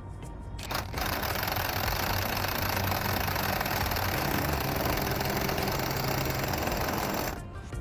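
Impact wrench with a 1 5/16 socket running on a monster truck's pinion nut, tightening it down, in one steady run of about six seconds.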